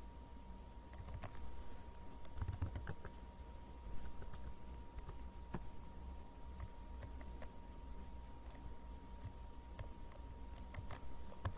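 Computer keyboard keystrokes and mouse clicks, sparse and irregular, coming in small flurries, over a faint steady electrical tone and low hum.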